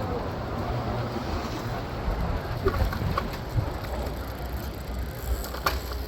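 City street traffic heard from a moving electric scooter: a steady low rumble of passing vehicles, with a few short high squeaks around the middle and a sharp click near the end.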